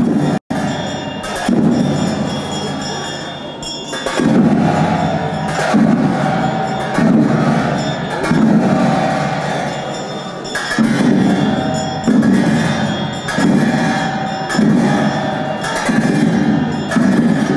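Tibetan monastic ritual music for a black-hat cham dance: large hand cymbals and a drum struck together in a slow, steady beat, about one stroke every second or so, each stroke ringing on. There is a brief dropout about half a second in.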